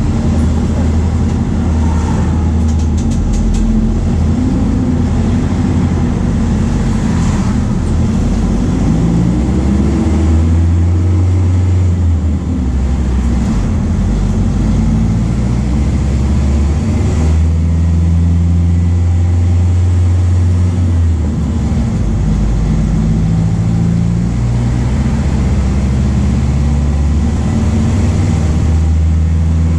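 MAN D0834 four-cylinder turbodiesel of a VW 17.230 OD bus running on the road, its engine note rising and dropping several times as the speed changes.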